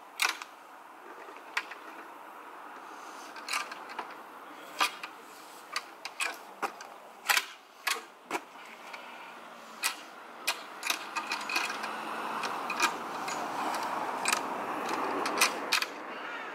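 Two-handled shovel's steel blade digging into clumpy soil: irregular sharp scrapes and knocks of the blade against dirt and stones, about one a second. A rushing noise builds over the last few seconds.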